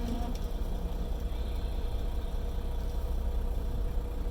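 Semi truck's diesel engine running, a steady low rumble heard from inside the cab.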